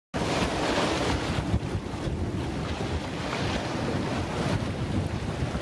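Strong wind buffeting the microphone aboard a sailing yacht under way, with waves rushing along the hull in rough seas.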